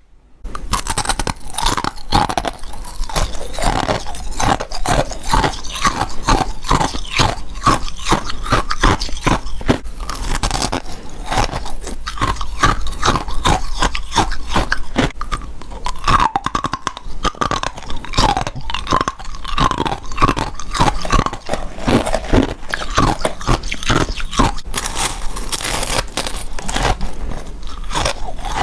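Close-miked biting and chewing of freezer frost: dense, rapid crunching with scraping and crackling as the icy frost breaks between the teeth, one crunch after another.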